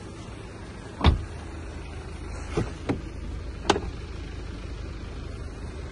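A car's rear door, on a BMW F10 5 Series, is shut with one solid thump about a second in, followed by three lighter clicks, over a steady low rumble.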